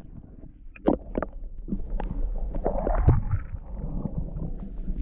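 Lake water sloshing and splashing as someone moves through it, in irregular small splashes over a steady low rumble.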